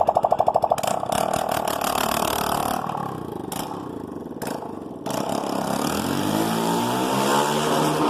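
Motorcycle engine and exhaust making a fast, even bubbling burble that fades about a second in. About six seconds in it revs up, its pitch rising.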